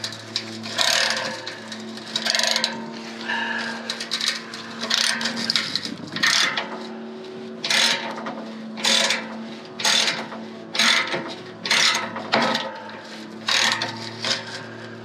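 Ratchet wrench and socket clicking and grinding in repeated strokes, roughly one a second, as a seized, rusted exhaust nut comes loose, over a steady low hum.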